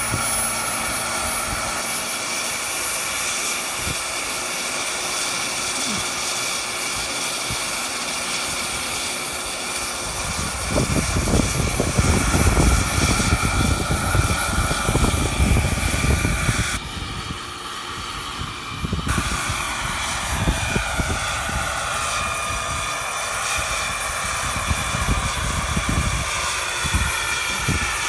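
Small gas-turbine engine and main rotor of a radio-controlled scale Airbus EC135 jet helicopter running: a steady high whine with several tones. From about ten seconds in a gusty low rumble joins, and in the second half the whine glides in pitch as the model lifts off.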